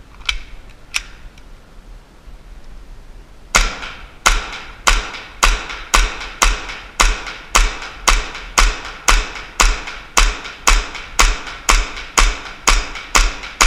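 Tokio Marui Desert Warrior 4.3 gas blowback airsoft pistol firing shot after shot at a steady pace, a little under two shots a second, each a sharp crack with a low thump and a short echo in an indoor range. Two faint clicks come first, then the shooting starts a few seconds in.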